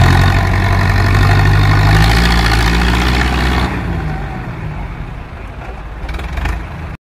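John Deere tractor engine running hard under load while pulling a truck mired in mud, then easing off about halfway through. A few short knocks come near the end.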